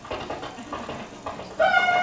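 Film soundtrack of a 1960s western playing in a small screening room: faint, indistinct knocks and rustling, then about one and a half seconds in loud music comes in, a held high melody note that steps up and down.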